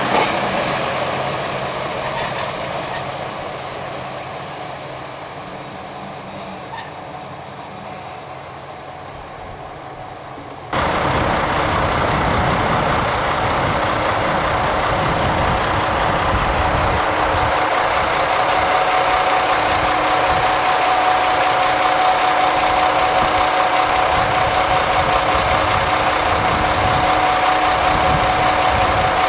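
A KTR001 diesel train passing and fading away over about ten seconds. Then, after an abrupt cut, a diesel railcar engine runs steadily with a deep rumble and a constant hum.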